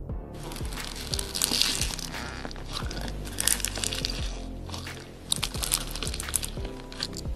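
Fingers pressing and squeezing foam-bead slime in a plastic jar, the beads crunching and crackling in dense bursts, over background music.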